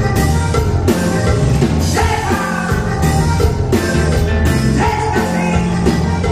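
Live norteño-style band playing: button accordion holding long notes over electric bass, guitar and a steady drum-kit beat.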